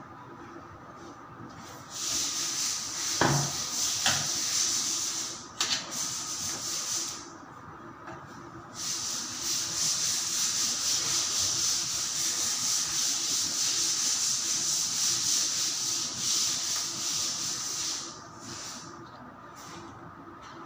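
A screw being turned by hand with a screwdriver, driving a metal spotlight track into the ceiling: a steady, mostly high-pitched noise in two long stretches, with a few sharp clicks in the first.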